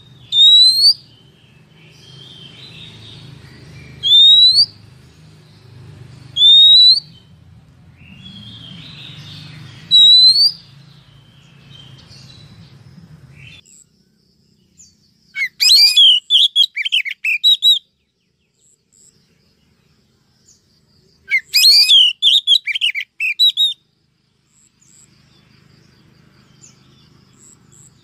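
Female Oriental magpie-robin calling. First come four single rising whistles a few seconds apart. After a cut to a quieter recording come two bursts of fast, varied chattering notes, each about two seconds long. These are the female's calls, used as a lure to rouse male magpie-robins.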